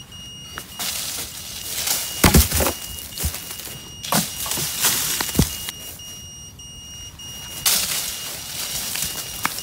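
A long wooden stick striking and rattling the branches and leaves of a tree in a series of sharp knocks, the two loudest together a little over two seconds in. A steady high-pitched beep runs underneath, typical of an FPV quad's lost-model buzzer.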